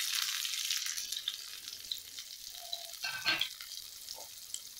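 Chopped onions sizzling as they hit hot mustard oil in a kadai: a loud hiss at first that gradually dies down.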